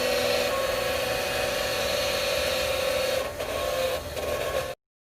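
Hayward Super Pump pool pump motor running with a loud, steady whining screech and a rasping edge, the 'dying whale' noise that the owner puts down to a bad motor bearing. It wavers twice near the end and cuts off suddenly.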